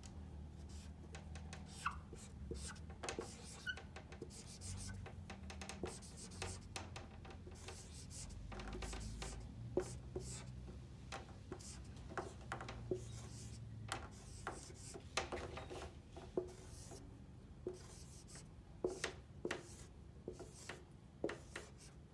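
Dry-erase marker writing on a whiteboard: a run of short, irregular strokes and taps as letters are drawn.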